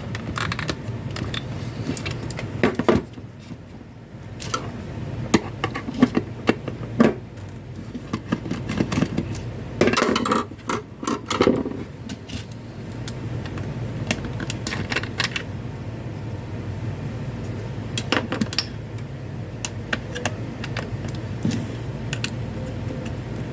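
Irregular light clicks, taps and rattles of small hard objects being handled, busiest around the middle, over a steady low hum.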